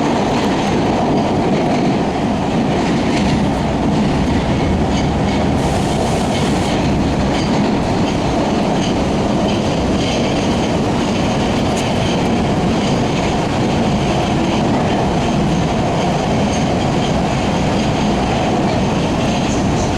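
Interior running noise of a CRRC-built MBTA Orange Line subway car at speed: a steady rumble of wheels on rail, with a short hiss about six seconds in.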